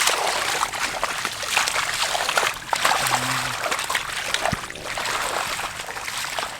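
Shallow water splashing and sloshing without a break, with many small quick splashes. A short low hum comes about three seconds in.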